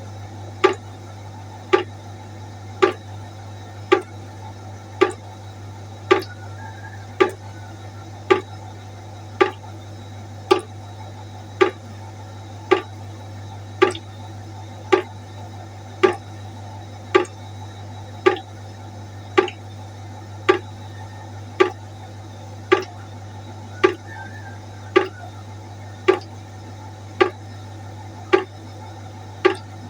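Water droplets falling one at a time into a pot of water, a regular drip about once a second with a short ringing plink on each drop, over a steady low hum.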